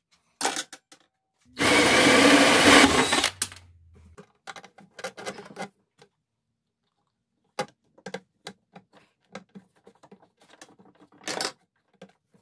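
A small power tool runs for about two seconds, loud and steady with a low motor hum. Then come scattered clicks and knocks of tool and fitting handling.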